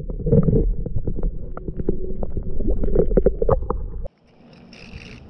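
Water moving around a camera held underwater as a fish is released: a low rumble with many small clicks and knocks. It cuts off abruptly about four seconds in, leaving a quieter, even hiss.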